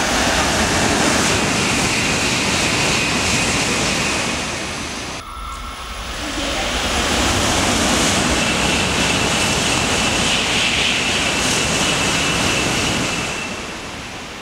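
A 700 series Shinkansen (Nozomi) passes through the station at speed without stopping: a loud, steady rush of air and wheel noise with a high whine running through it. It dips briefly about five seconds in, swells again, and fades near the end.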